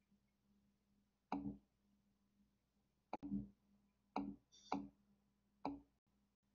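About five short, soft clicks or taps, spaced a second or so apart, over a faint steady electrical hum.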